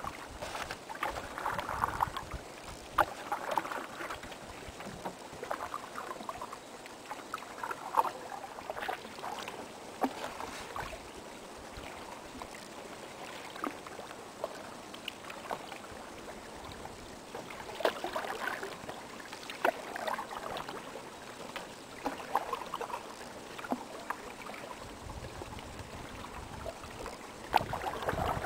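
Paddles dipping and pulling through calm river water, with a soft swish and splash every second or two and now and then a sharp click or knock.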